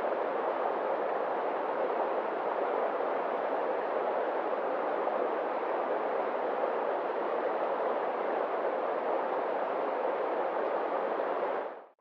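Muddy, fast-flowing river rushing over rocks, a steady full rush of water that fades out just before the end.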